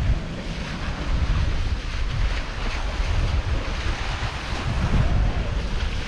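Wind buffeting the microphone in uneven gusts over the hiss and wash of open-sea waves passing a sailing catamaran's hulls.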